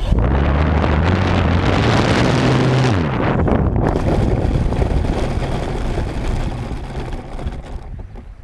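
Multiplex Fun Cub RC plane's electric motor and propeller running as the plane rolls over grass and then gravel, with a rumble of the wheels and airframe picked up on board. The motor note drops and stops about three seconds in, and the rolling rumble fades as the plane slows to a stop.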